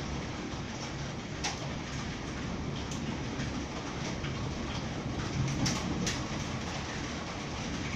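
Heavy thunderstorm rain, a steady downpour with a low rumble underneath and a few sharp ticks of drops.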